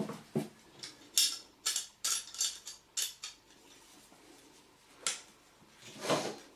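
Metal plumbing tools and a compression fitting being handled. A quick run of short metallic clinks and scrapes comes about a second in, then two more near the end.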